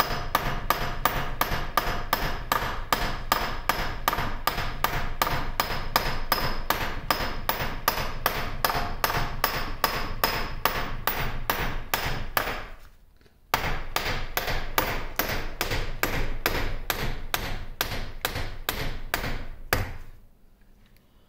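Steady hammer blows, about three a second, on a steel punch driving a shaft out of a lathe's quick-change gearbox, with a short pause about thirteen seconds in and a stop near the end. The shaft is moving slowly because it is pushing a set of bearings out with it.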